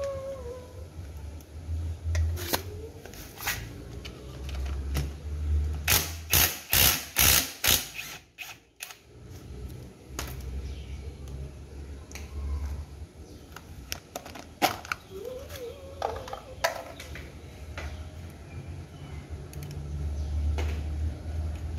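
Cordless impact driver run in a quick series of short, loud bursts about six seconds in, working the flywheel puller on a Modenas ACE 115 engine's magneto rotor. Scattered tool clicks and clinks follow.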